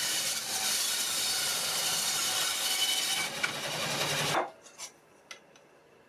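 A tool working a piece of yew wood: a steady, loud scraping hiss that cuts off abruptly about four and a half seconds in, followed by a few light clicks.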